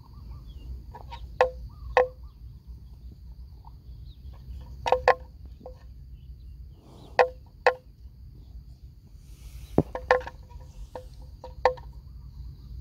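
Water buffalo grazing close up: crisp sharp rips as it tears off mouthfuls of grass, often in pairs about half a second apart, coming faster near the end.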